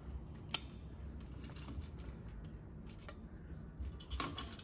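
Kitchen tongs clicking as roast potatoes are picked out of a Ninja Foodi basket and set on a plate: a sharp click about half a second in, scattered light ticks, and a short cluster of knocks near the end, over a low hum.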